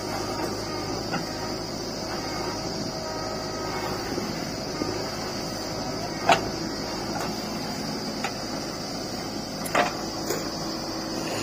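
JCB 3DX backhoe loader's diesel engine running steadily under hydraulic load as the backhoe digs and dumps soil. Two sharp clunks come about six and ten seconds in, with a few lighter clicks between.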